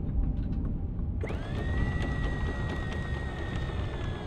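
An anchor windlass motor whining as it hauls in chain over the bow. The whine starts abruptly about a second in, holds a steady pitch that sags slightly near the end, and has a low rumble beneath it.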